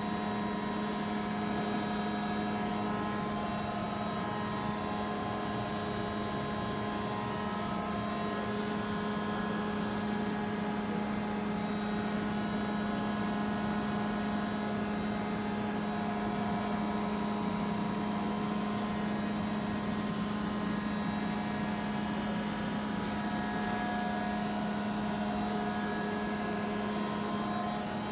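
Gildemeister NEF 600 CNC lathe running: a steady mechanical hum with several held tones, the strongest one low, unchanged throughout.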